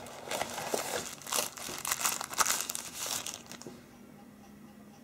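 Cardboard and plastic packaging crinkling and rustling in the hands as a phone is lifted out of its box tray, dying away to quiet room tone about three and a half seconds in.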